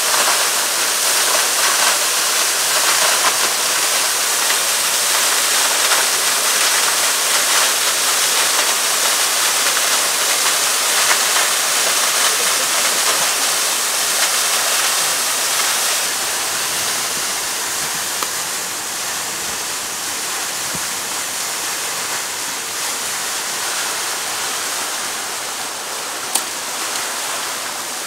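Steady rush of a waterfall, an even hiss of falling water that eases slightly about halfway through. A single sharp click sounds near the end.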